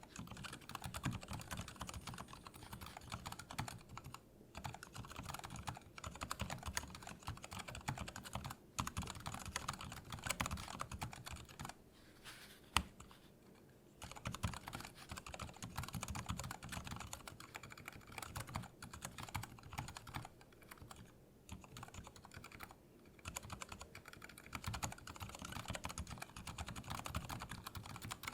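Typing on a Lily58 Pro split mechanical keyboard with Cherry MX Silent Red linear switches in a 3D-printed case: a steady stream of soft, damped key presses with short pauses, and one sharper clack near the middle.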